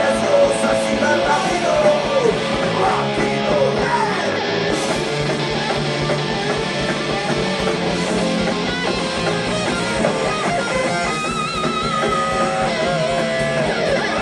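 Live rock band playing loud and continuous: electric guitars, bass and drums, with wavering held guitar notes in the second half.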